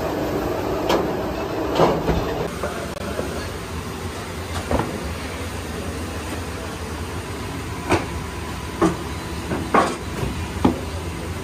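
Steady low mechanical rumble with about seven short, sharp knocks and slaps, several close together near the end, as dough balls are handled and set down on a flour-dusted board.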